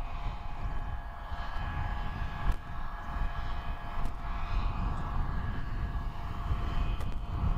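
John Deere 8400R tractor's six-cylinder diesel engine running steadily under load while pulling a strip-till unit, a constant high whine over a low rumble.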